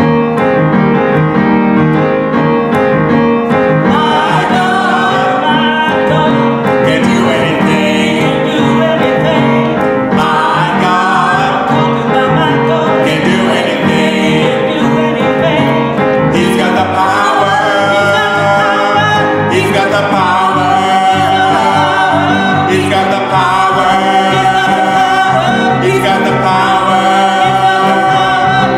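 A gospel worship song: singing voices over piano accompaniment.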